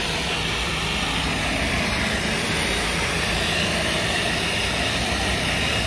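Handheld electric rotary polisher running steadily, its spinning pad worked against a car's front bumper.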